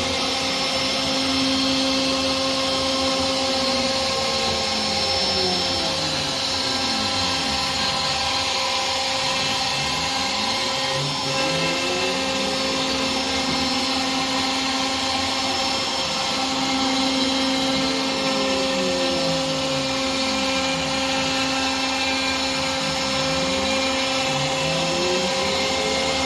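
CNC machine running: a steady motor whine, with a second pitch that repeatedly slides up and down every second or two.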